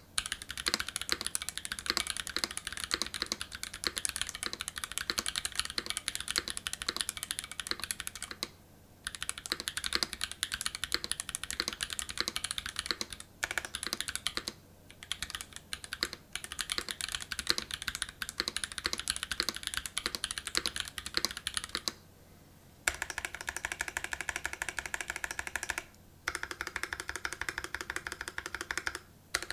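Fast typing on a treeleaf64 917 custom mechanical keyboard with lubed Haimu x Geon White switches in a stainless steel plate and GMK keycaps: a rapid run of keystroke clacks, broken by a few brief pauses.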